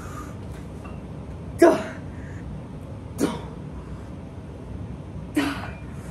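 Three sharp, forceful exhalations, huffs of effort with repetitions of a one-arm dumbbell wrist curl, about a second and a half to two seconds apart; the first is the loudest.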